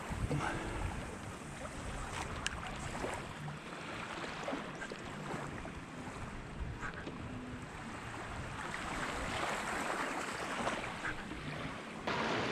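Wind buffeting the microphone over the steady wash of breaking surf.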